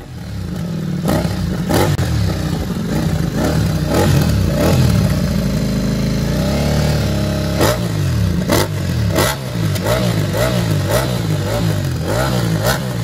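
Ducati Multistrada V4's 1158 cc V4 engine revved while standing, through a QD slip-on exhaust with the catalytic converter removed and the dB killer fitted. One longer rev in the middle, then a run of quick throttle blips with sharp cracks between them.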